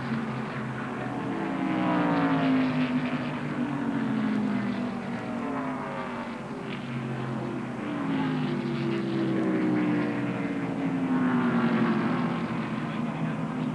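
NASCAR Winston Cup stock cars' V8 engines passing one after another at caution pace, each engine's pitch falling as it goes by, the sound swelling and fading as groups of cars pass.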